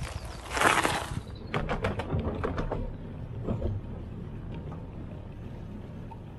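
Mountain bike being ridden: a loud rush of wind noise on the microphone about half a second in, then a run of rattling clicks from the bike, settling into a steady low rumble.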